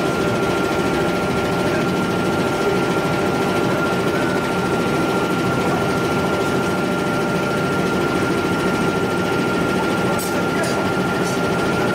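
Steady drone of forge-shop machinery running, with a constant high whine over it. A few light metal clinks come near the end as a steel bar is worked into the hot forging.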